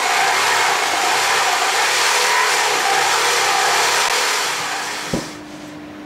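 Electric jigsaw running as its blade saws through a wooden board, a steady buzzing rasp. It winds down about five seconds in, followed by a single knock.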